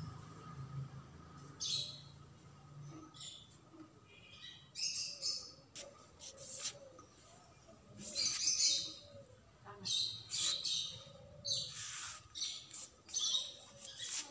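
Small birds chirping in short high-pitched bursts every second or two, with brief pauses between calls.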